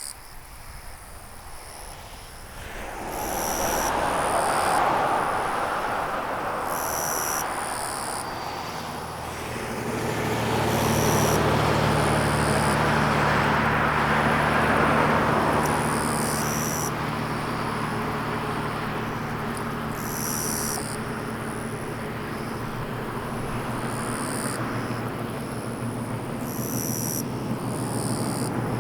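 A motor vehicle passing, its road noise swelling around three seconds in and again around ten seconds in, with a steady low engine hum from about nine seconds on. Insects chirp in short high bursts every second or two.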